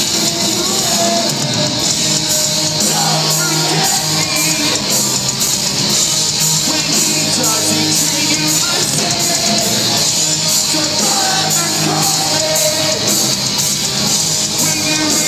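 Live rock band playing loud: electric guitars, drums and a lead singer's vocals, with no break.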